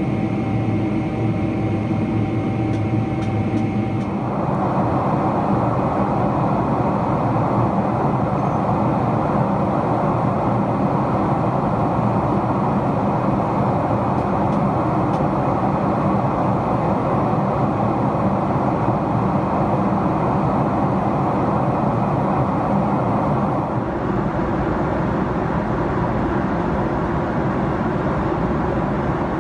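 Steady in-flight cabin noise of a Boeing 777-300ER: the rush of its GE90-115B turbofans and airflow. A high engine whine in the first few seconds gives way to a broader, fuller rush about four seconds in. The sound shifts slightly near the end.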